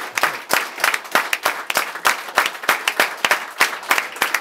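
Audience applauding: many hands clapping in an irregular, dense patter, with individual claps standing out.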